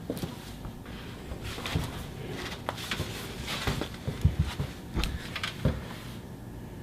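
Scattered light knocks, low thumps and shuffling of a person moving about and lying down on a wooden-slatted bench, with the heaviest thumps a little past the middle.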